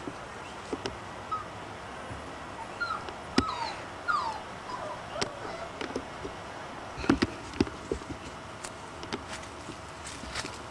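Puppies whimpering in short, high, falling squeaks, bunched about three to five seconds in, amid scattered sharp knocks and clicks of movement.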